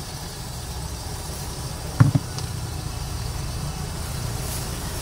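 Steady low roar of a gas burner under a wok of hot oil, with one sharp knock about two seconds in.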